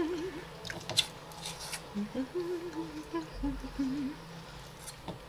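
A woman humming a tune softly to herself. A few short clicks of food and skewers being handled come about a second in.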